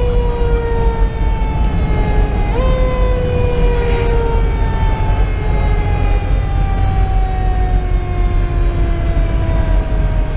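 Federal Q2B mechanical siren winding down, its wail falling slowly in pitch; it is briefly wound up again about two and a half seconds in, then keeps coasting down. The fire engine's Detroit Series 60 diesel and road noise rumble underneath inside the cab.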